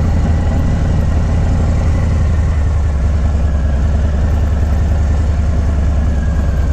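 Harley-Davidson Low Rider S's Milwaukee-Eight 114 V-twin running steadily as the bike rides along.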